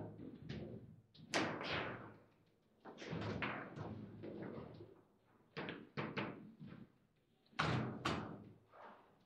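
Foosball table in play: irregular sharp knocks and slams as the ball is struck by the figures and the rods bang, coming in clusters, with the loudest hits about a second and a half in and again near the end.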